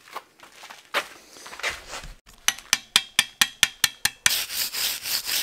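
Chipping hammer on a fresh weld bead on steel angle in a vise, knocking off the slag: a few scrapes, then about nine quick sharp taps at roughly five a second. Near the end it changes to a steady scrubbing as a wire brush cleans the weld.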